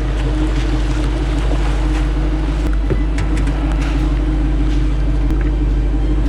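A vehicle engine idling steadily under a continuous hiss of wind and water noise.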